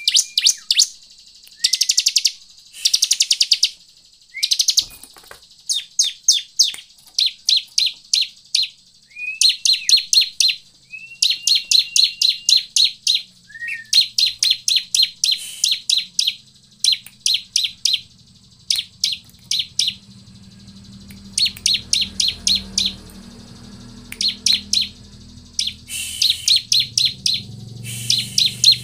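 Bar-winged prinia (ciblek) singing: bursts of rapid, sharp, buzzy chirps repeated over and over, with a few short rising notes between them. A faint low hum comes in about halfway through.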